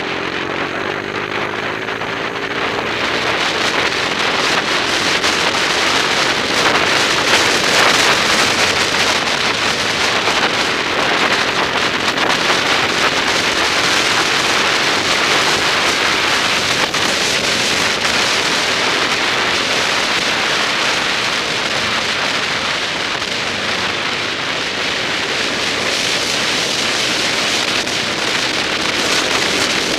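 ATV (quad bike) running along a gravel dirt track, its engine rising in pitch in the first few seconds as it speeds up. The engine is then mostly buried under steady tyre-on-gravel and wind noise.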